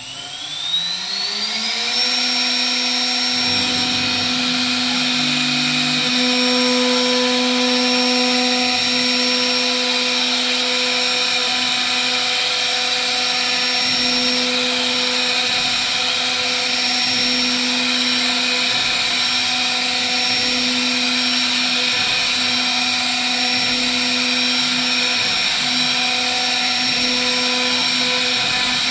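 CNC router spindle spinning up with a rising whine that levels off about two seconds in, then running at a steady high whine while its bit routes a groove into a wooden panel.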